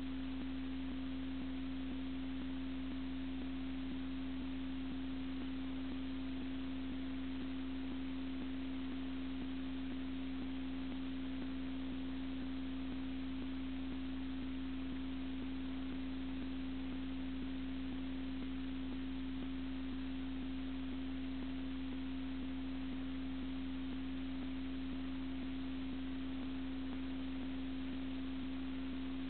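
A steady electrical hum at one pitch over an even hiss, unchanging throughout: playback and transfer noise on the soundtrack of a silent home movie, with no sound from the fair itself.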